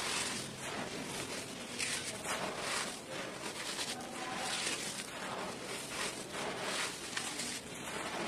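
Dry, powdery red dirt crumbling and falling from cupped hands, then fingers raking and pressing through the loose dirt. It makes a soft, gritty rustle in a string of short strokes.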